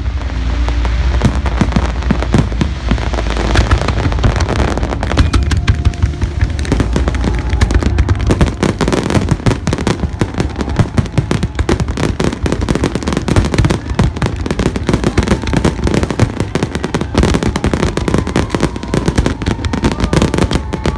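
Large fireworks display: aerial shells bursting in a dense, unbroken barrage, many bangs overlapping with a deep low rumble underneath.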